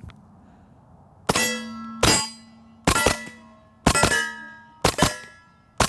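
Stribog SP9A3G 9mm delayed-blowback carbine firing six shots, about one a second, each followed by steel targets ringing.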